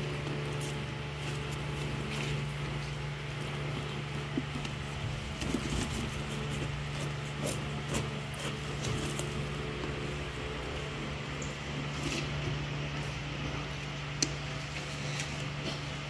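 A steady mechanical hum, with scattered light clicks and knocks as salted fermented shrimp is scooped and pressed into plastic jars by gloved hands.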